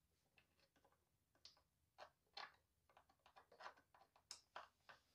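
Faint, irregular clicks and ticks of a hand screwdriver working small screws out of a Onewheel Pint's plastic rear fender, the metal bit tapping and catching on the screw heads and plastic.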